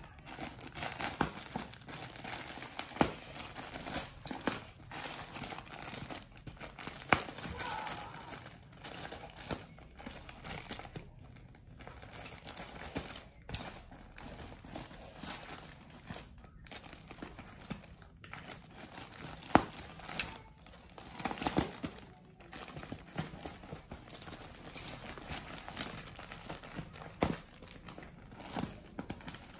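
Plastic packaging crinkling and tearing as a parcel wrapped in clear plastic film and a black plastic bag is cut and pulled open with scissors. The rustling runs on continuously, with sharp clicks scattered through it.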